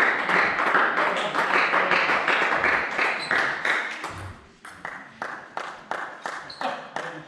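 Rhythmic hand clapping from a small group, quick and steady at first, then thinning to slower, more spaced claps about halfway through.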